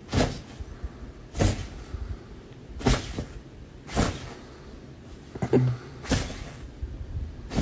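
A dog giving short, muffled boofs in protest, about six of them a second or so apart.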